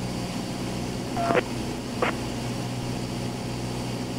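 Steady drone of a light aircraft's piston engine and propeller in flight. Two short clicks about a second in and again just after two seconds, the first with a brief tone in it, typical of a radio key or squelch break.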